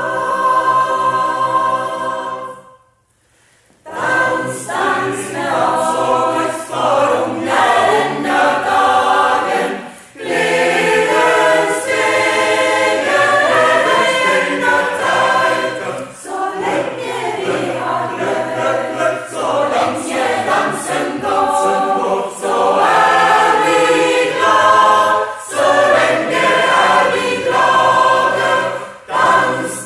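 Choir singing. A held chord at the start breaks off into a short pause about three seconds in, and the singing then resumes with moving parts.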